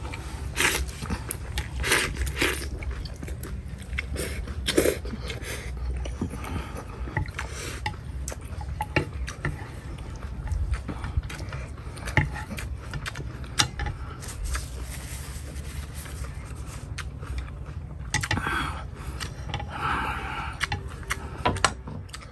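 Close-up eating sounds of a man working through a bowl of fresh red chili and rice-noodle soup: chewing and slurping, with chopsticks and a metal spoon clicking and scraping against the ceramic bowl.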